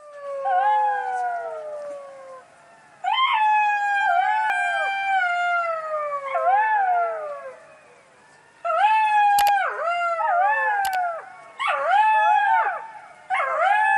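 A dog howling, a run of high pitched calls that arch up and slide down, in several bouts with short pauses between.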